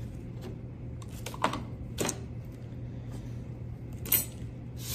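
Light clicks and taps of small hard objects being handled, with three sharper knocks about a second and a half in, at two seconds, and just after four seconds, over a steady low hum.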